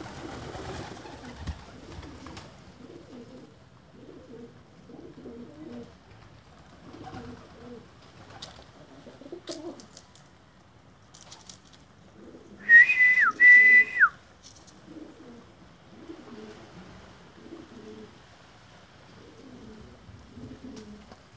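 A flock of domestic pigeons cooing over and over in low calls. About thirteen seconds in, a loud whistle sounds twice at one steady high pitch, each part dropping at its end, the pair lasting about a second and a half.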